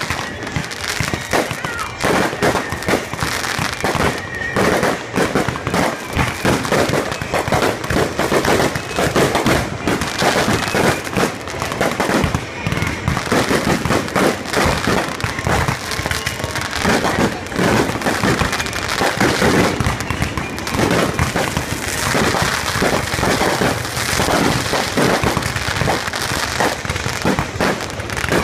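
Fireworks display: a dense, nearly unbroken barrage of shell bursts, bangs and crackle, many reports every second with no pause.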